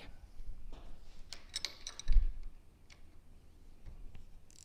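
Scattered light metallic clicks and taps of a wrench working the nut that holds the valve stack on a racing shock's shaft, with one dull low thump about two seconds in.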